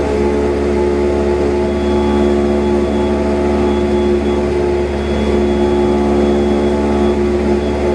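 Cessna 172's piston engine and propeller droning steadily in cruise flight, heard from inside the cabin.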